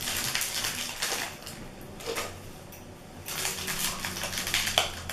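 Candy wrapper crinkling and crackling as it is handled and opened, in two bouts of quick crackles with a short pause between them.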